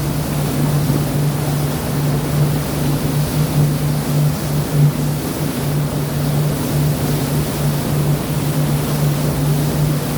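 Sea water rushing and washing continuously, with a strong steady low hum throughout.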